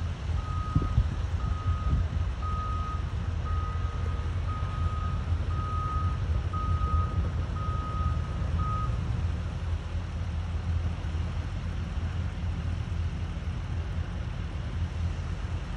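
Reversing alarm on a piece of heavy construction equipment, beeping a single steady tone about once a second and stopping about nine seconds in, over a low steady rumble.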